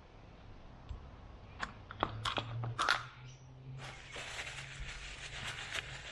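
Small power steering pump parts handled and set in place by hand: a few sharp clicks, then a crinkly rustle with more clicks over the last couple of seconds.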